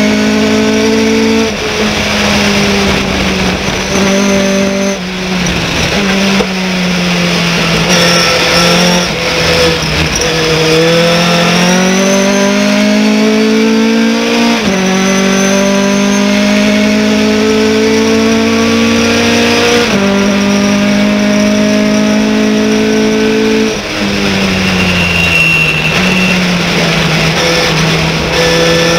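Race pickup truck's engine heard from inside the cab at race speed. Its pitch climbs under acceleration, drops sharply at each gear change, and falls away when the driver lifts off for corners.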